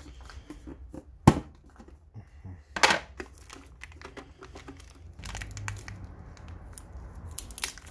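Handling noise as the plastic compressor case is opened: a sharp click about a second in and a short knock near the middle, then crinkling and crackling of protective plastic wrap being peeled off the power cable.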